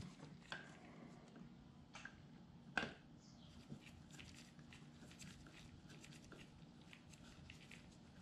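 Faint clicks and light taps as a stainless screw is turned in with an Allen wrench and the mirror arm is handled, the sharpest click about three seconds in. Otherwise near silence with a low steady room hum.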